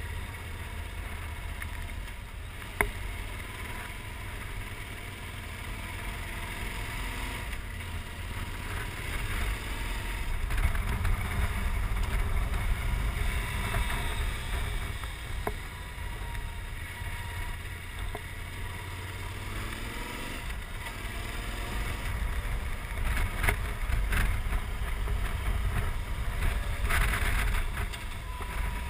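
Wind rumble over the microphone of a moving motorcycle, with the Yamaha XT1200Z's parallel-twin engine underneath, its pitch rising and falling through the bends. A single sharp click about three seconds in.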